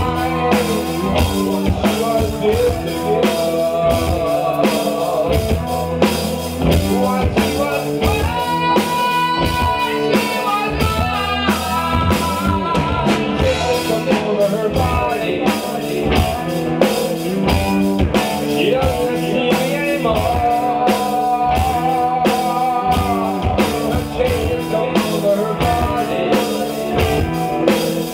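Live rock band playing: a male singer over distorted electric guitars, bass and a drum kit keeping a steady beat.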